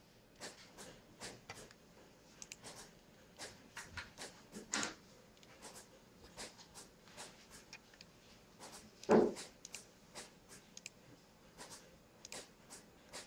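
Low room background with scattered light clicks and taps, and a louder single knock about nine seconds in.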